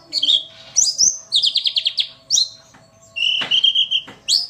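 White-eye (pleci) singing: quick high chirps and rising whistles, a fast run of short falling notes about a second in, then a longer stuttering note near the end. It is offered as a female pleci's call, used to draw reluctant males into song.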